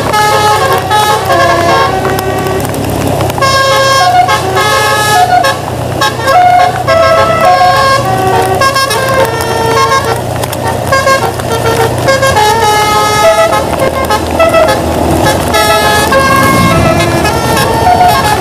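Bus telolet musical air horn playing a quick tune of short horn notes, one after another at changing pitches, over the bus engine's low steady drone.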